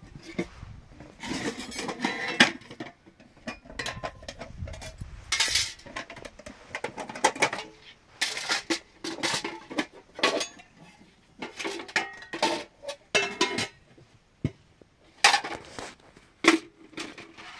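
Dishes and utensils clattering as they are handled: an irregular run of sharp clinks and knocks.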